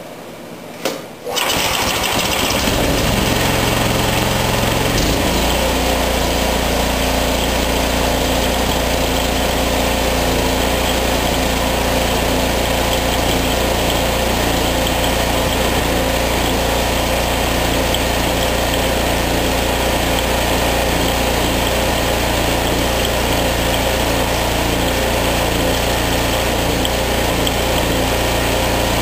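16 HP PowerMax engine on a John Deere 1032 snowblower starting up about a second in, then running steadily at its governed speed. Its tone shifts a few seconds in as it settles. The governor tab has just been bent to bring the speed down, and the engine is being set to about 3600 rpm.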